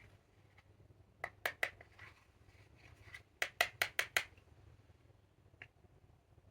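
Clear slime being worked by hand, making sharp clicking pops as air pockets burst: three a little over a second in, a quick run of five around the middle, and one more near the end.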